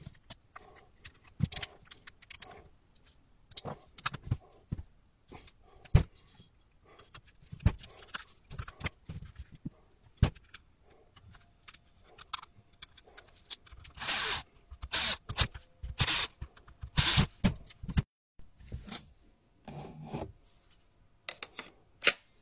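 Metal and plastic parts of a Parkside Performance cordless jigsaw being handled and refitted by hand: scattered clicks, taps and knocks of a hex key and small parts, with a run of longer scraping rubs past the middle.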